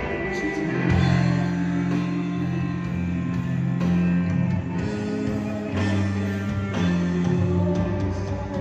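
Live band music with guitar, a deep bass line and drums.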